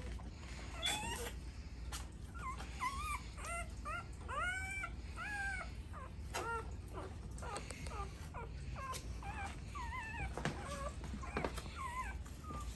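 Dog whimpering: many short, high-pitched whines that rise and fall, coming in clusters, over a low steady hum.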